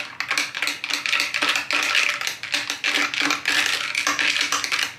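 Glass straw stirring iced coffee in a drinking glass, the ice cubes and straw clinking and rattling against the glass in quick, continuous clicks.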